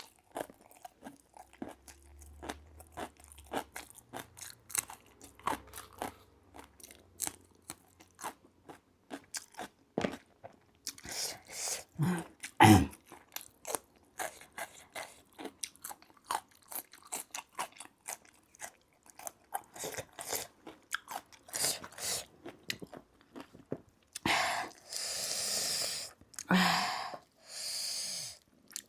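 Close-miked chewing and crunching of food, with many small wet clicks and bites. Near the end come several long airy hissing sounds.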